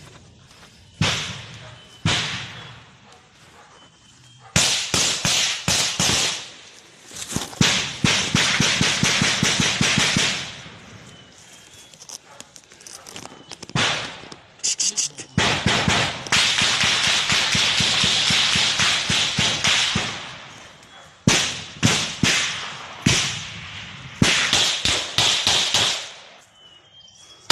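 Automatic small-arms fire: single shots about one and two seconds in, then long rapid bursts from about four and a half to ten seconds in and again for most of the second half.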